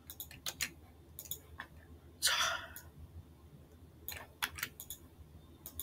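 Sharp computer mouse and keyboard clicks in small scattered clusters, from selecting and copying spreadsheet cells. A little over two seconds in there is one louder, short breath-like noise.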